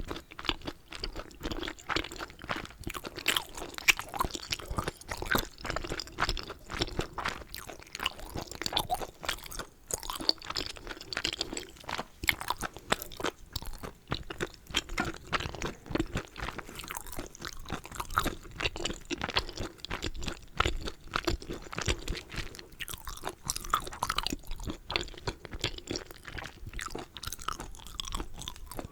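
Close-miked chewing of a person eating Korean dumplings (mandu): a dense, unbroken run of small mouth clicks and smacks.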